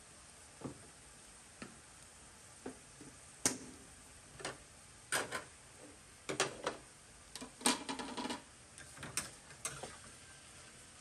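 Irregular metallic clinks and scrapes of tongs and a spatula against a steel wok and plates while carrots are stir-fried. The clinks come a second or so apart, then crowd into a busier run of scraping and stirring about six to eight seconds in.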